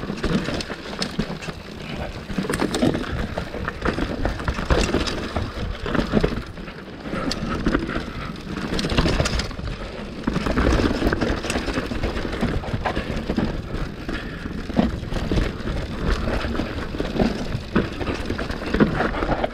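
Mountain bike ridden down rough forest singletrack: steady tyre noise on dirt and roots, with frequent sharp knocks and rattles from the bike over bumps and a low rumble underneath.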